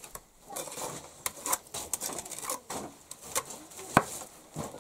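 Trowel scraping clay mortar out of a bucket and spreading it onto a brick, with scattered sharp clicks and taps of the metal blade against brick and bucket.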